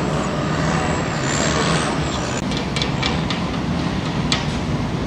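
Engine running steadily with a low hum, a thin high whine over it that fades out about halfway.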